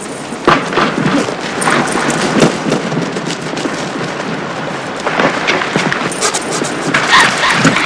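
A film fight-scene scuffle: bodies struggling on the ground with an irregular run of thuds and blows.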